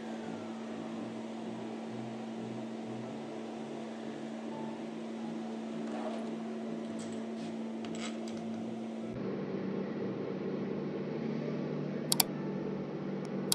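Steady low hum with a few faint ticks, changing character about nine seconds in; about twelve seconds in, a pair of sharp mouse-click sound effects from a like-and-subscribe overlay.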